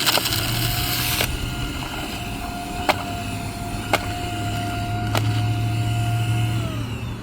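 Haimeec cordless stick vacuum's motor running with a steady whine while trying to pick up sand, which clogs it. A hiss of sand going through fades after about a second, a few sharp ticks follow, and near the end the motor's pitch falls as it winds down.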